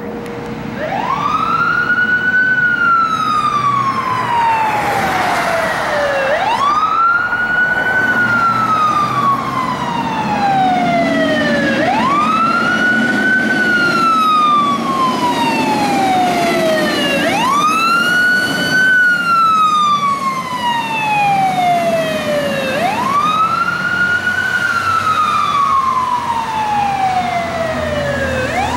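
Fire engine siren wailing on a call. Each cycle rises quickly to a high pitch and then falls slowly, repeating about every five and a half seconds, five times over. The truck's engine runs underneath as it drives past.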